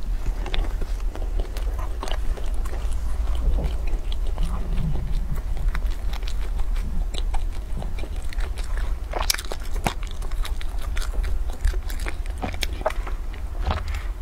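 Close-miked eating sounds: a person biting and chewing with many small wet mouth clicks and crackles, then sipping a carton drink through a straw.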